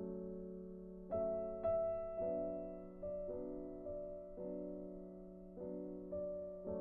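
Soft background piano music: slow, sustained chords, with new notes coming in about every second.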